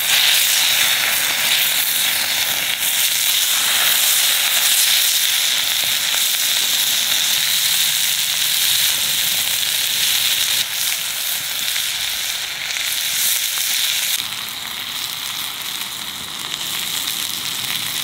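Chicken neck meat sizzling in melted butter in a cast iron pan over a wood fire, the sizzle starting suddenly as the meat goes into the hot pan and easing slightly after about fourteen seconds.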